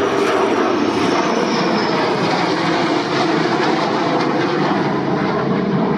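Steady jet noise from a formation of three F-15 fighters flying past overhead, with a thin high whine that drops slightly in pitch over the first two seconds.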